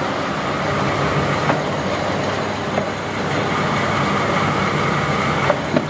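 Machinery running with a steady hum and a faint high whine. A few light clicks or knocks come through it, two of them close together near the end.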